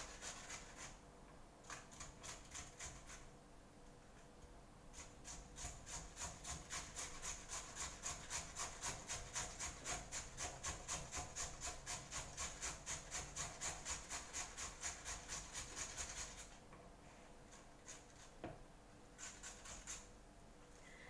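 Hand potato masher mashing cooked potatoes in a bowl: rhythmic scraping strokes, about two or three a second, with short pauses near the start and a longer one near the end.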